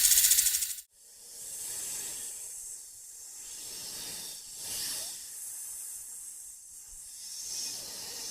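Snakes hissing: a loud hiss cuts off abruptly about a second in, followed by softer hisses that swell and fade every few seconds.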